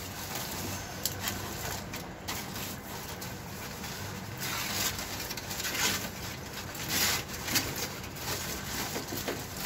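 Aluminium foil crinkling and rustling in irregular crackles as hands press and crimp it around the rim of a clay cooking pot to seal it, over a steady background hiss.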